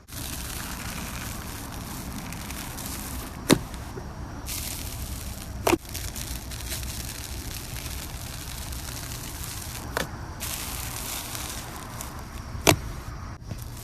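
Slime being squished and kneaded by hand, a steady wet crackling with four sharp pops spread through it.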